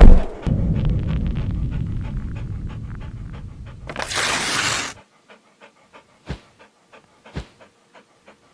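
Animated-intro sound effects: a hard thump, then a dog panting heavily for several seconds, with a whoosh about four seconds in. It ends in a few soft thumps.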